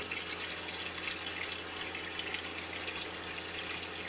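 Water running into a washing machine as it fills, with a steady low hum from the RV on-demand water pump running; the pump runs as long as the machine still needs water.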